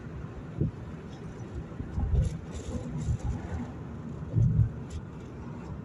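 Car driving along a city street: a steady low road and engine rumble, with louder low thumps about two seconds in and again near four and a half seconds.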